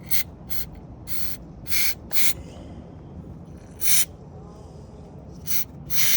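Aerosol carburetor cleaner sprayed in about eight short hissing blasts, some in quick pairs, into a small carburetor's passages to clear a suspected blockage in the idle circuit.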